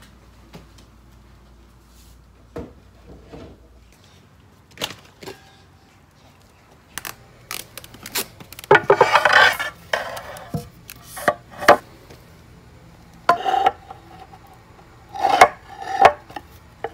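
Irregular knocks, clatters and scrapes of things being handled and set down, with a louder stretch of scraping and rustling about nine seconds in and several sharp knocks near the end.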